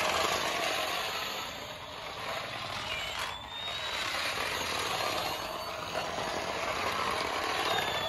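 Remote-control toy F-22 fighter plane driving across a hard terrazzo floor: a steady whirring rumble from its small electric drive motor and plastic wheels, with a faint high whine that rises and falls as it speeds up and slows, twice.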